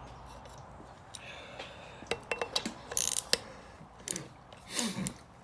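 A few scattered light metal clicks and clinks, most of them in the middle, from a screw-type valve spring compressor being handled on a valve spring of a Toyota 22RE cylinder head.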